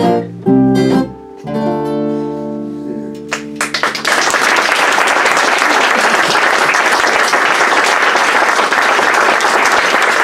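Two acoustic guitars and a bass guitar strike the closing chords of a song, the last one left to ring and fade. About four seconds in, the audience breaks into steady applause that carries on.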